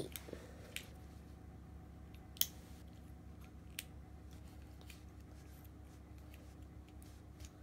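Small plastic toy pieces being handled, giving a few light clicks, the sharpest about two and a half seconds in, over a low steady hum.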